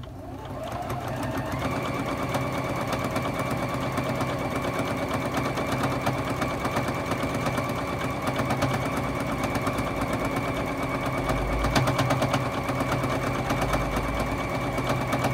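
Juki HZL-F600 domestic sewing machine free-motion quilting with its feed dogs dropped, winding up to speed over about the first second and then stitching steadily, with a fast rhythmic needle beat and a constant high whine. The speed slider is set only halfway between turtle and rabbit.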